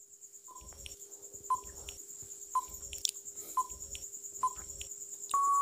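Electronic countdown-timer sound effect: five short beeps about a second apart, then one longer, louder beep near the end, marking the time to answer running out.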